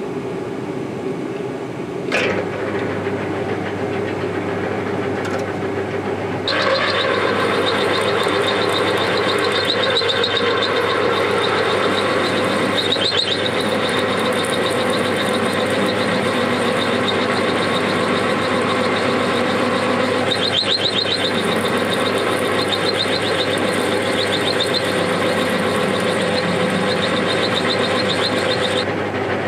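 Metal lathe motor switching on with a click about two seconds in and running with a steady hum. From about six seconds in, a 20 mm twist drill in the tailstock cuts into the spinning workpiece with a loud, even drilling noise.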